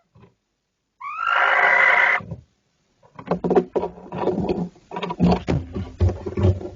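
Barn owl giving one harsh, hissing screech about a second in. From about three seconds in comes a run of knocks, scrapes and thumps as a second barn owl comes into the nest box.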